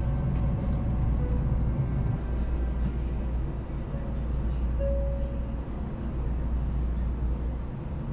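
Steady low rumble of a Shinkansen bullet train running at speed, heard inside the passenger car. A few brief steady tones come and go over it.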